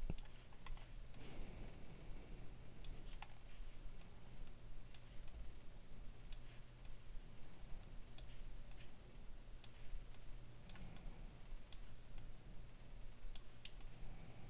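Faint computer mouse clicks, scattered irregularly every second or so, as page elements are clicked and dragged, over a low steady hum.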